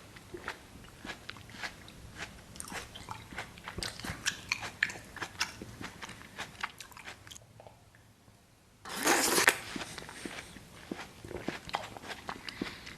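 Close-miked eating sounds: watermelon being bitten and chewed, a quick string of crunchy, wet clicks. The chewing stops for about a second and a half, seven seconds in. Just before nine seconds a short, loud noisy burst comes, the loudest moment, then the chewing resumes.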